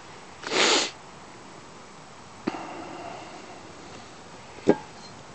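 A short sniff, then the metal housing of a Dynapac 600 revolving Christmas tree stand being handled on a wooden surface: a knock a couple of seconds in that rings briefly, and a sharper knock near the end.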